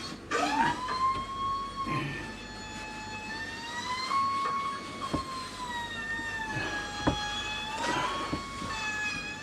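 Power sanding tool's motor whining steadily, its pitch sagging and climbing slowly as it is pressed into the wood and eased off, with a couple of sharp knocks about five and seven seconds in.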